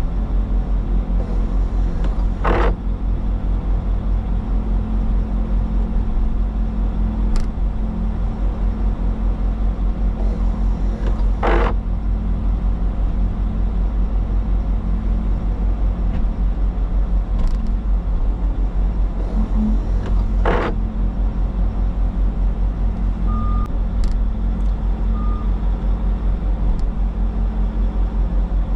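Bobcat T62 compact track loader's diesel engine running steadily, with a fast low pulse, while working the truck recovery. Three short sharp noises cut in about nine seconds apart, and two brief faint beeps sound near the end.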